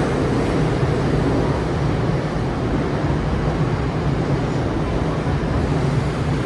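Steady low rumble and hum of an underground railway station platform, with no train arriving or leaving; it holds level with no changes.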